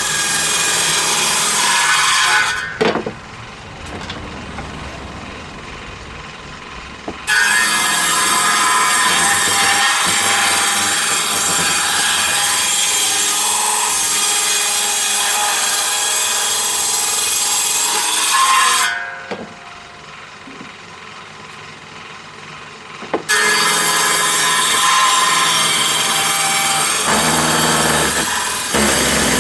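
Power saw ripping wood along the grain in long cuts. The loud cutting noise dies away twice, about 3 s and 19 s in, to a quieter running sound, and resumes abruptly a few seconds later each time.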